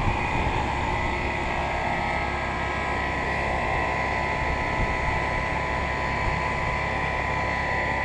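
A 2001 York 2.5-ton central air conditioner's outdoor unit running steadily: the compressor's hum and the condenser fan's whoosh, with a faint steady tone over them.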